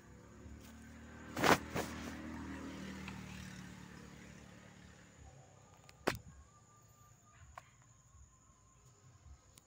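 A motor vehicle passing by, its engine rumble swelling and then fading over a few seconds. Two sharp knocks come about a second and a half in, and another about six seconds in.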